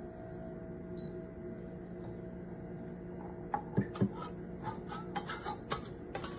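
A steady low hum, then from about halfway in a run of about a dozen irregular light knocks and clinks, some briefly ringing.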